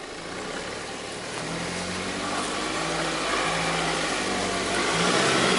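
Nissan Patrol 4x4's engine running steadily as the vehicle drives toward the listener, the engine note coming in about a second and a half in and growing louder as it approaches.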